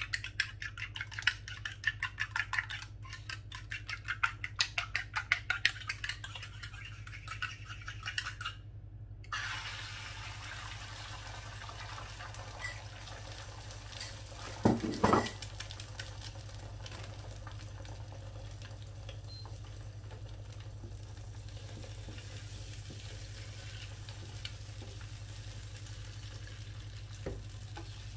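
A fork beats eggs in a ceramic bowl, making rapid clicking strokes for about eight seconds. After a short break, beaten eggs cook in a nonstick frying pan with a faint steady sizzle, and a single loud knock comes about halfway through.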